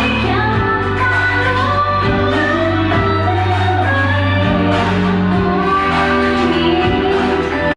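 Thai pop song playing, a sung vocal over a steady bass line and beat, cutting off abruptly near the end.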